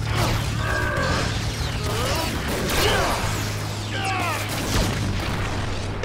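Action-show sound effects of two energy beams clashing: a steady low hum under noisy crackle, with repeated falling sweeps, mixed with background music.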